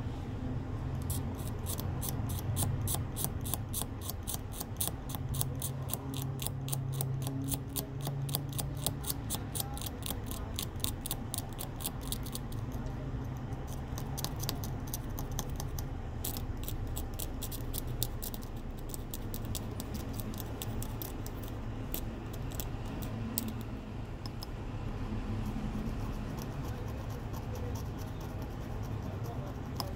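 A steel blade scraping the edge of a phone circuit board beside its tiny microphone, in quick strokes several a second. The strokes run steadily for the first dozen seconds, then come in shorter runs, over a steady low hum.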